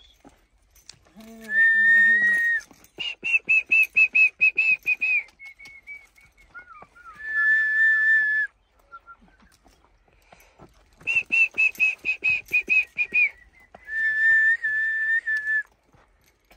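A person whistling in phrases: long held notes alternating with runs of quick, evenly spaced short notes, three bursts with pauses between.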